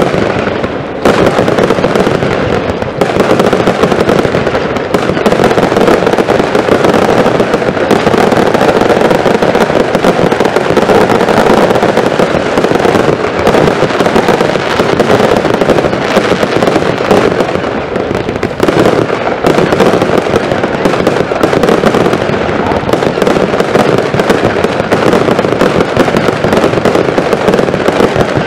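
Ground-level fireworks firing in a dense, unbroken run of rapid bangs, with a short lull about a second in.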